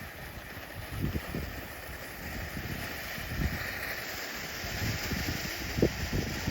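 Two consumer fountain fireworks burning side by side with a steady spraying hiss, a little brighter after about four seconds, while wind buffets the microphone.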